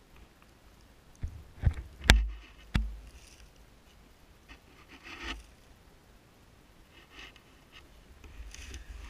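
Close handling noise: a bark-covered stick knocking and scraping among fir branches and dry leaves. Four sharp knocks come between about one and three seconds in, the loudest just after two seconds, then a softer scrape around five seconds and a few light ticks.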